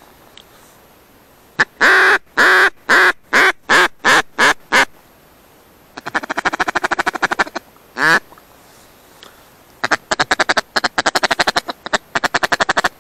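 Loud duck quacking: a run of about nine quacks that get shorter and quicker, then fast chattering runs with a single quack between them.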